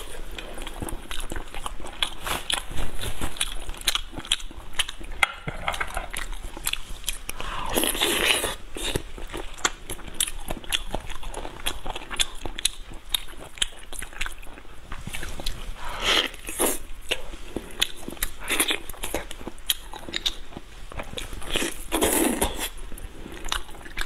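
Biting into and chewing a large piece of meat on the bone: dense, quick wet mouth clicks and smacks, with a few louder, longer mouth sounds about a third of the way in, two-thirds in and near the end.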